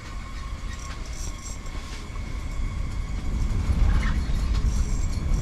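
Strong wind buffeting the camera microphone, a low rumble that grows louder about three seconds in.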